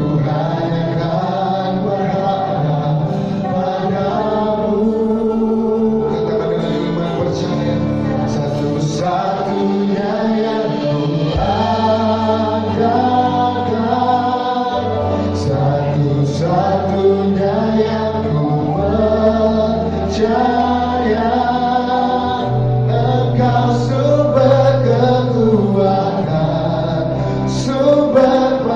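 Choir singing a gospel worship song over an instrumental backing with sustained bass notes and light percussion.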